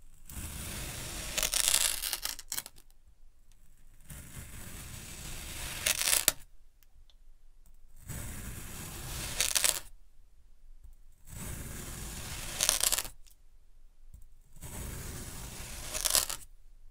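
A knife slicing through a block of compacted kinetic sand, five separate cuts. Each is a gritty scraping crunch that grows louder and ends in a sharp crisp crumble, with short quiet gaps between.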